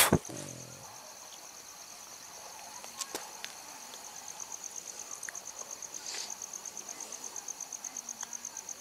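An insect trilling steadily in a fast, even pulse, with a few faint clicks from pliers working on electrical wire. There is one sharp knock at the very start.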